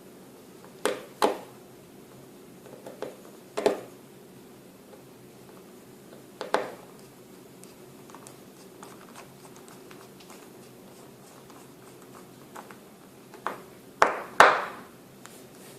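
Small, sharp clicks and taps of hand tools and small parts against a smartphone's frame during reassembly. They come singly and in pairs, and the loudest pair is near the end, over a faint steady hum.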